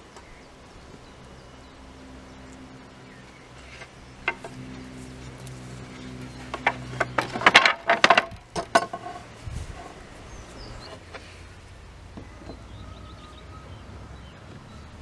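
Loose pine slats and steel pincers clicking and knocking together in a quick cluster about halfway through, over a low steady hum.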